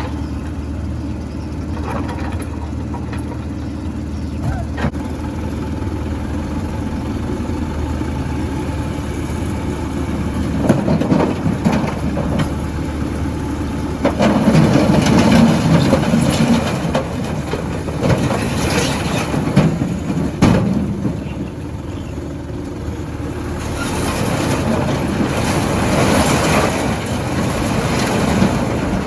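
Heavy diesel machinery of a dump truck and excavator working: a steady engine drone, with louder, rougher surges coming and going from about ten seconds in.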